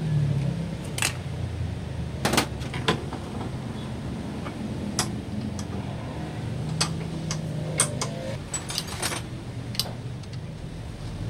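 A vehicle engine running steadily at low revs, with scattered sharp metallic clicks and clinks over it.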